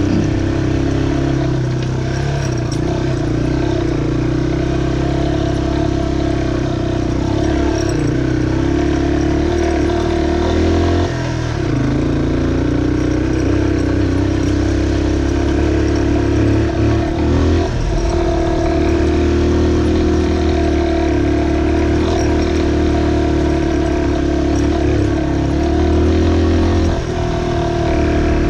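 A 2003 Yamaha XT225's single-cylinder four-stroke engine running while the motorcycle is ridden. The note holds steady, and its pitch dips and climbs again a few times, about eleven, eighteen and twenty-seven seconds in.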